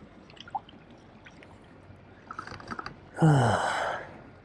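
A man's loud, breathy sigh with a falling pitch about three seconds in, after a few faint ticks.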